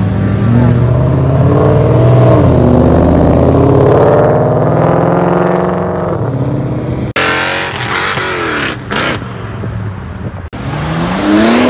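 Orange Ford Mustang accelerating away hard, its engine note rising and falling as it revs. After an abrupt cut near seven seconds, other cars are heard pulling away, and a car revs up near the end.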